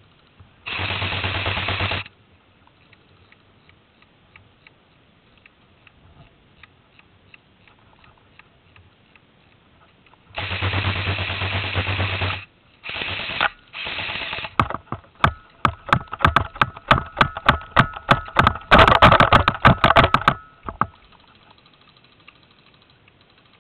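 Airsoft electric guns firing on full auto: two long bursts of a second or two, two short bursts, then a rapid run of single shots and bursts that is heaviest about two-thirds of the way through.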